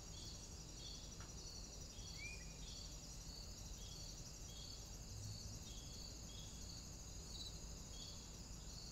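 Crickets chirping steadily, a high trill with regular chirps about three every two seconds. A single short bird-like chirp comes about two seconds in.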